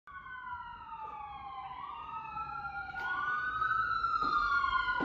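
Emergency vehicle sirens wailing, several overlapping tones gliding up and down, growing louder.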